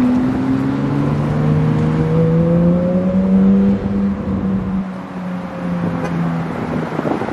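A Porsche 911 GT3 and a Ford Mustang pulling away up the road, their engine note rising steadily for about three seconds and then fading. Wind buffets the microphone near the end.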